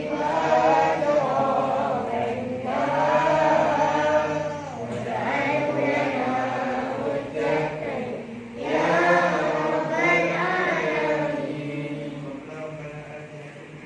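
Group of voices chanting together in a slow, melodic devotional chant, in the manner of a prayer recited in unison. It fades down over the last couple of seconds.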